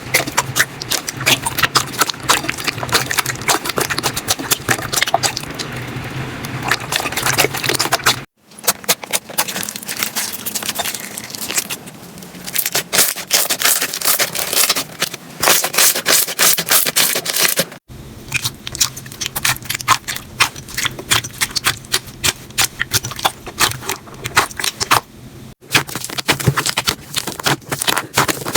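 Slime being squeezed, pressed and stretched by hand, giving dense, fast crackling and popping clicks. The sound stops abruptly three times as one clip cuts to the next.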